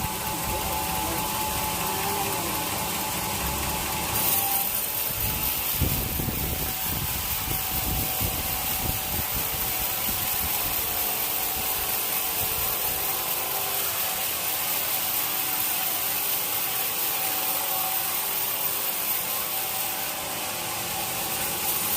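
A sawmill saw cutting through teak wood, a steady sawing noise that takes on a higher edge about four seconds in and holds it.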